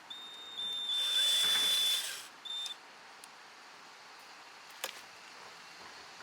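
Cordless power driver unscrewing the bolt behind an interior door handle: a high motor whine of about two seconds, then a short second burst. A single faint click follows near the end.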